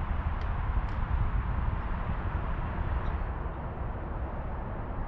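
Wind rumbling on the microphone outdoors, a steady low buffeting noise that eases slightly in the last couple of seconds.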